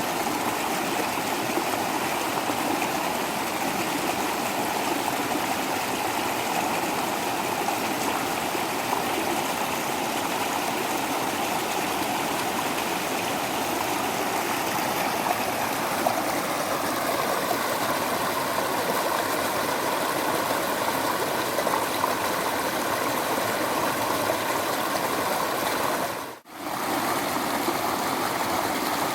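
Waterfall: water falling and rushing in a steady, even stream. The sound drops out for a moment near the end, then resumes unchanged.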